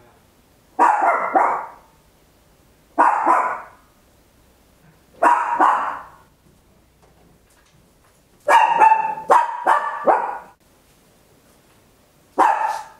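A papillon, a tiny toy-breed dog, barking very loud in short volleys of two or three quick barks every two to three seconds. It gives a longer run of rapid barks about two-thirds of the way through.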